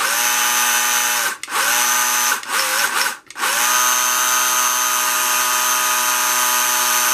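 1/24 Carrera Digital slot car's electric motor whining as the car is driven on the track. It gives three short throttle bursts, cutting out between them, then one long steady run.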